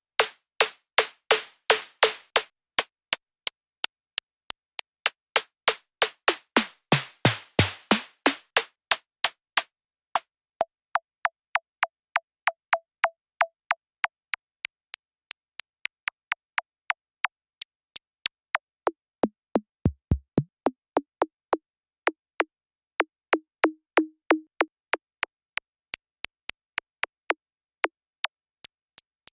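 2hp Snare Eurorack module firing a steady beat of short electronic drum hits, about two and a half a second. The first stretch is bright, noisy snare-like hits; after about ten seconds its tone is turned down to thin pitched clicks, then to lower tom-like hits, some dropping sharply in pitch about twenty seconds in.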